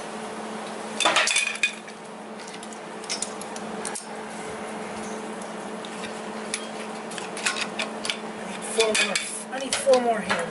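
Metal clinks and clanks of a steel swivel caster being handled and fitted against a steel engine-stand leg: a quick cluster about a second in, a few more around three seconds, then a busier run of clinks near the end. A steady low hum runs underneath.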